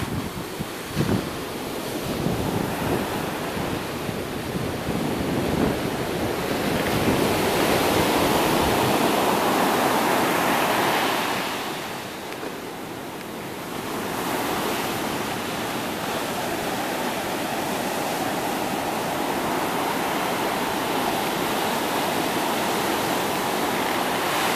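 Ocean surf washing up the beach: a steady rushing wash that swells loudest a third of the way in, drops briefly, then settles into an even roar of breaking waves. Wind buffets the microphone near the start.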